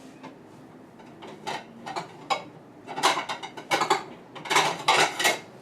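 Kitchen utensils and dishes clattering: a run of short knocks and scrapes that starts about a second in and grows busier, with two dense bursts of clatter in the second half.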